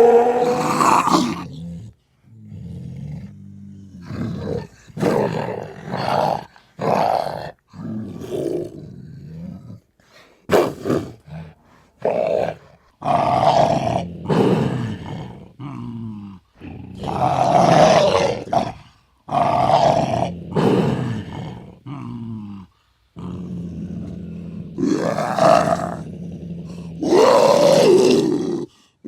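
Leopard growling and roaring in a string of short calls one to two seconds apart, with several longer, louder roars among them.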